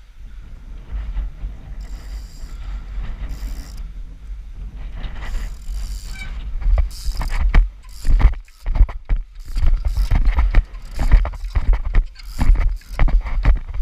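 Trials bicycle ridden over block paving and concrete: tyre roll and frame and chain rattle over a low rumble on the action camera's microphone. From about halfway through, sharp clunks and knocks come thick and fast.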